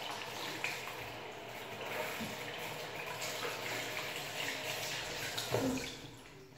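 Water running steadily from a tap into a sink, dying away near the end.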